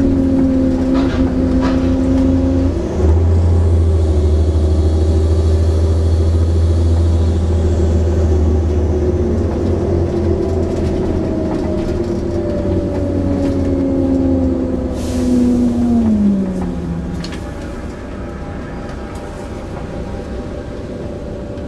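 Volvo Olympian double-decker bus with a ZF automatic gearbox under way: the engine pulls with a gear change about three seconds in, then the engine note falls as the bus slows. A short burst of air hiss comes about fifteen seconds in, and the engine settles to a quieter idle near the end.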